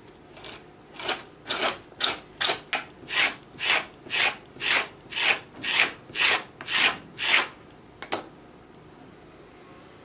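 Hand rasp working wood in even back-and-forth strokes, about two a second, stopping after about seven seconds; one sharp click follows.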